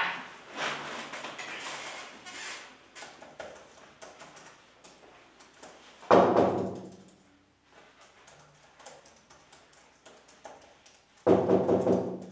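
Typing on a laptop keyboard: a run of small key clicks after a brief rustle at the start. Two louder, short pitched sounds break in, about six seconds in and near the end.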